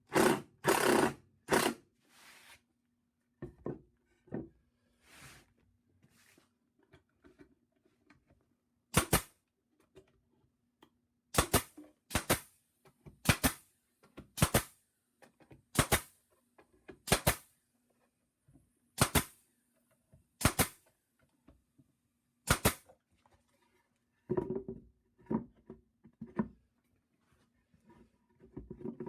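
A series of sharp knocks on wood, about a dozen strong ones spaced roughly a second apart through the middle, with weaker taps before and a quick cluster near the end, over a faint steady low hum.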